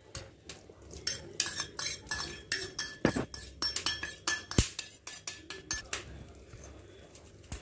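Metal spoon clinking and scraping against stainless steel bowls as soaked dry fruit is spooned into thick batter: a quick, irregular run of clinks, some ringing briefly, that eases off about six seconds in.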